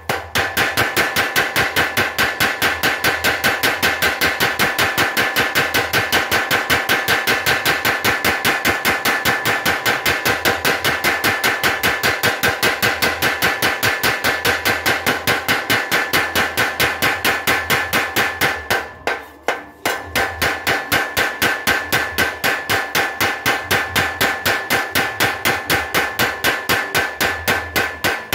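Mechanical blacksmith's power hammer pounding a hot steel blade held in tongs: a fast, even run of ringing metal-on-metal blows at about five a second, with a short pause a little past two-thirds of the way through before the blows resume.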